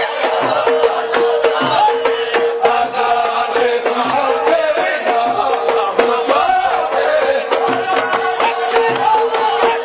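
Amazigh ahwach music: a men's group chanting over dense, sharp percussive strokes, with a steady held note running underneath.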